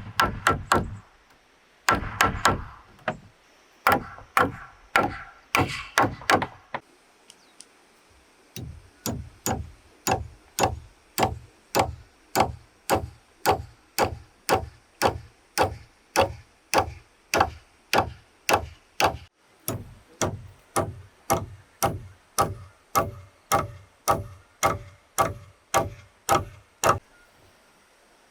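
Repeated blows of a tool on bamboo, each a sharp knock with a thud and a short hollow ring. A quicker, uneven flurry of strikes comes first, then after a short pause a steady run of about two blows a second.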